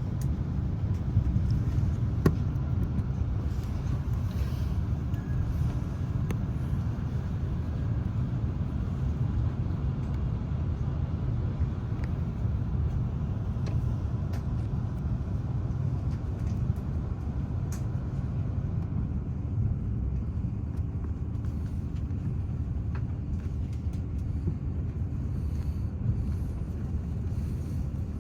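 Airbus A330-300 airliner cabin noise: a steady low rumble from the engines and airframe, with a few faint light clicks.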